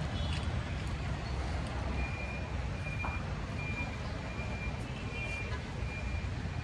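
An electronic beeper, such as a vehicle's reversing alarm, sounds a steady train of short high beeps at an even pace of about one every 0.7 seconds, starting about two seconds in. Under it runs a low steady rumble of city traffic.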